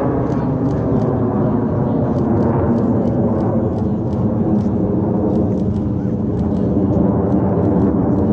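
Jet noise from the Frecce Tricolori's Aermacchi MB-339 aerobatic jets flying a looping manoeuvre overhead: a steady deep rumble that grows a little louder near the end.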